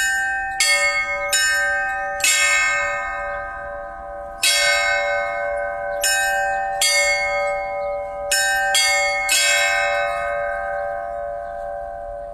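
Orthodox church bells rung by a bell ringer: about ten strikes in an uneven rhythm on bells of different pitch, their tones ringing on and overlapping. The strikes stop about nine seconds in and the bells ring on, fading.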